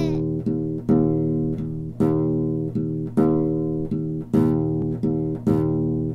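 Music: a low chord sounded about once a second, each note sharp at the start and fading, over a steady low hum; it cuts off suddenly near the end.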